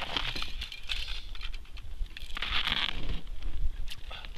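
Irregular rustling and crunching from an ice angler shifting in snow and heavy winter clothing while jigging over a hole in the ice, over a low rumble of wind on the microphone.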